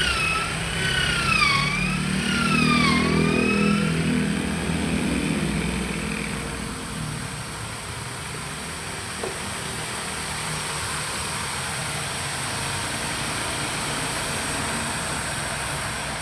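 Electric hand drill running. Its motor whine dips and recovers in pitch three times in the first few seconds, then it runs on steadily. There is a single short click about nine seconds in.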